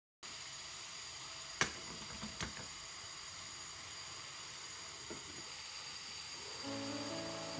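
Pot of water at a rolling boil, hissing steadily. There are two sharp metal knocks about a second and a half in and a second later as the steamer pan is set on top. Music comes in near the end.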